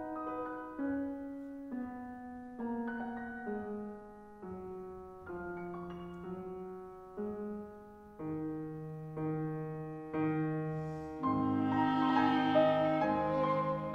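Grand piano playing a slow line of single struck notes that ring and fade, stepping down in pitch. About eleven seconds in the violin and clarinet come in and the music grows louder.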